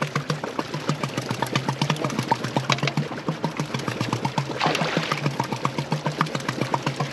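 A boat's motor running steadily, with a low hum and an even, rapid pulse of about seven beats a second. A short rush of noise comes about four and a half seconds in.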